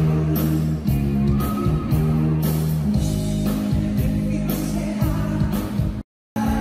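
Live rock band: a male lead singer over bass guitar and drums with a steady beat. The sound drops out for a moment about six seconds in, then the music resumes.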